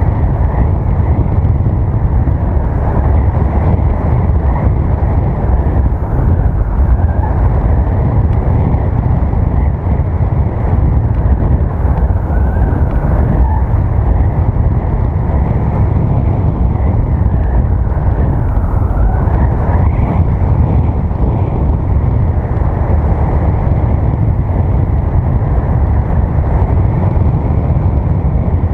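Wind rushing over the microphone of a camera flying along on a paraglider's winch tow: a loud, steady low rumble of wind noise.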